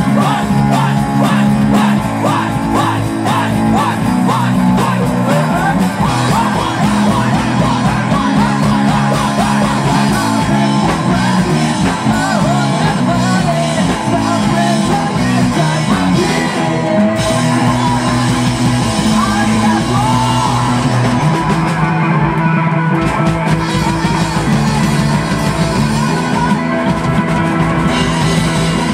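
Rock band playing live and loud: electric bass, electric guitar and drums driving a steady beat, with singing.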